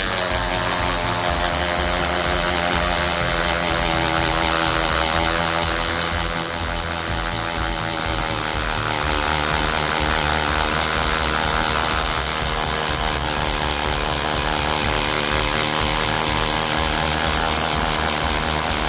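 Tool n Tool GTC-HD18V 18 V cordless hammer drill running steadily under heavy load, its bit grinding into a concrete paving block.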